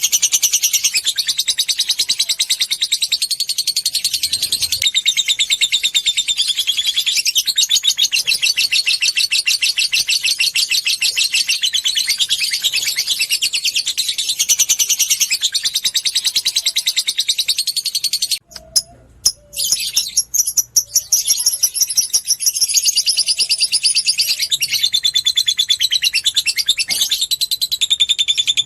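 Lovebird chattering in a long, fast, high-pitched run, the 'ngekek panjang' song, with a brief break about two-thirds of the way through.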